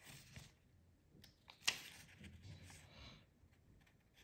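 Faint handling noises from keyboard unboxing accessories and packaging: light rustling, with one sharp click or tap a little before halfway.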